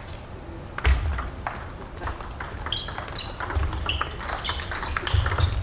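Table tennis ball clicking sharply off paddles and the table during play. There are several irregular clicks, the loudest about a second in, and short high squeaks in the second half.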